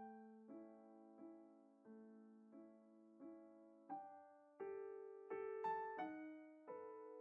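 Soft background piano music: single notes struck every half to three-quarters of a second, each dying away, with fuller chords a little past the middle.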